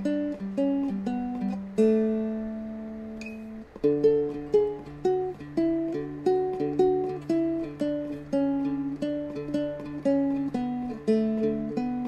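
Seagull Merlin, a four-string fretted dulcimer, played as a solo tune: a run of quick plucked single notes, a chord about two seconds in left to ring out for about two seconds, then the melody picks up again over a steady low droning note.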